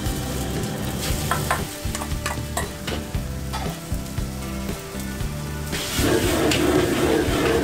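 A metal ladle clanks and scrapes in a carbon-steel wok while noodles sizzle in hot oil over a wok burner. About six seconds in, the sizzling grows louder as the wok is tossed over the high flame.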